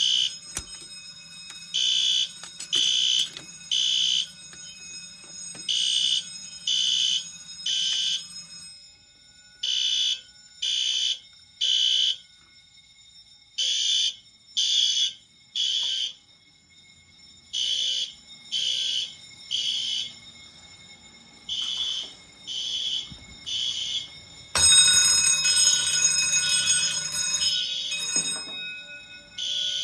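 Fire alarm horn sounding high-pitched pulses in the temporal-three (code 3) pattern: three short blasts about a second apart, then a pause, repeating. About 25 seconds in, a louder, harsher noise joins it for about four seconds.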